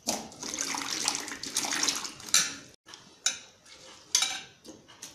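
Hands scooping cut elephant foot yam out of washing water in a stainless steel bowl: water splashing and dripping, and the wet pieces dropping into a second steel bowl. The splashing is steady for about two and a half seconds, then comes in a few separate splashes.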